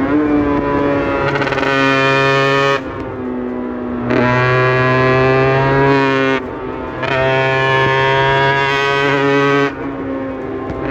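Aprilia RS 125's single-cylinder two-stroke engine pulling uphill under throttle with a steady note. Three times the rider briefly closes the throttle and the sound drops, then it pulls again.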